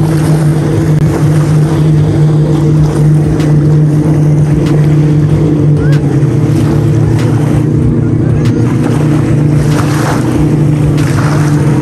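A motorboat engine running at a steady, unchanging pitch, a low drone, over the wash of small waves.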